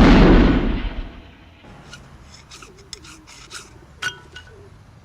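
A loud 12-gauge shotgun blast, a film sound effect, rings out over the first second. It is followed by scattered sharp metallic clicks and rattles from the gun being handled.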